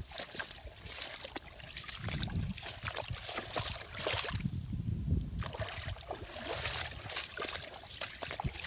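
Water sloshing and splashing in a flooded, waterlogged grass field, in an irregular run of short wet splashes.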